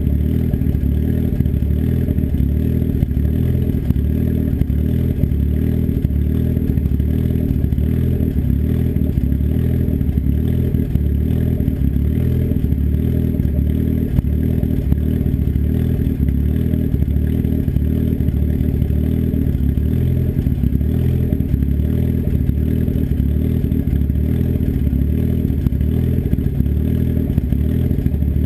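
Turbocharged engine with an S257 turbo and custom cams idling steadily through an open 3-inch turndown dump off the downpipe, with no muffler, loud and pulsing; it is warming up after a cold start.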